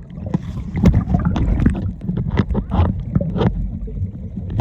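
Seawater sloshing and gurgling around a camera dipped into the shallows, a muffled low rumble broken by irregular splashes.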